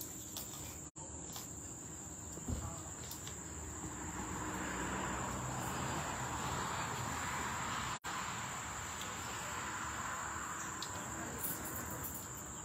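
Insects droning outdoors in a steady high even tone, with a broader hiss that swells from about four seconds in and eases near the end, and a single click early on.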